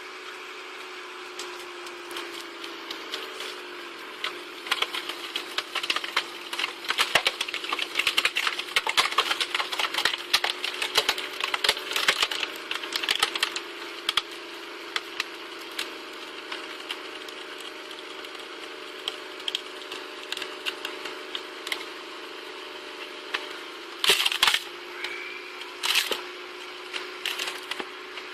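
Pieces of dry firewood clattering and cracking in quick, dense knocks over a steady engine hum, busiest in the first half, with a few sharp knocks near the end.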